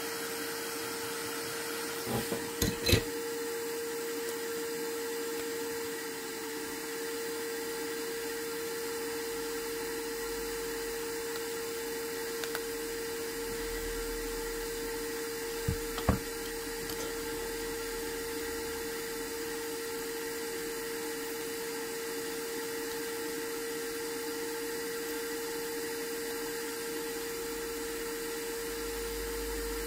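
Steady whirring of a small fan-driven machine with a constant hum, and a few sharp clicks of tools working on the phone about two seconds in and again around the middle.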